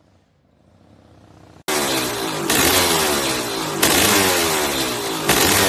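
Honda 500 two-stroke dirt bike's single-cylinder engine running and being blipped on the throttle, about once every second and a half, its revs falling away between blips. The loud engine sound cuts in suddenly about a second and a half in.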